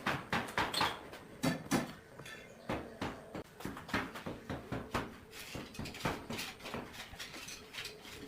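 A quick, irregular series of light knocks and taps, several a second.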